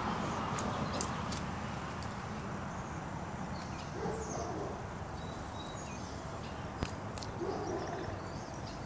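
A hen giving two short, soft, low clucks, about four seconds in and again near the end, over a steady background hiss, with a few sharp taps scattered through.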